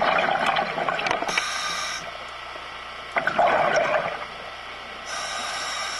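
Scuba diver breathing through a regulator underwater. Bubbles of an exhaled breath come twice, at the start and about three seconds in, and each is followed by the steady hiss of an inhaled breath.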